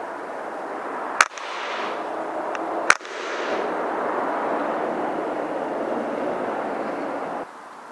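Two sharp cracks of a PCP air rifle firing, about a second and a half apart, over a steady rushing noise that cuts off near the end.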